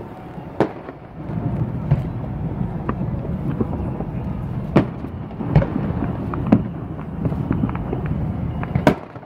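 Fireworks display: a dense, rolling rumble of aerial shells bursting, with scattered crackle, and a handful of sharp, louder bangs standing out from it, the last about nine seconds in.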